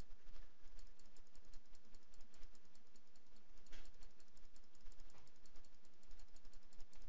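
Computer mouse button clicked rapidly and evenly, several clicks a second, placing stitch points one by one in embroidery digitizing software.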